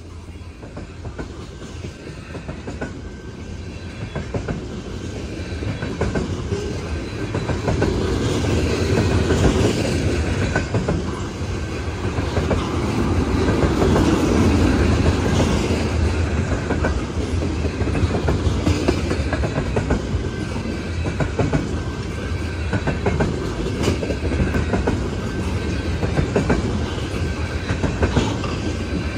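Freight train tank cars rolling past close by: a steady rumble of steel wheels on the rails with dense clickety-clack over the rail joints, growing louder over the first several seconds.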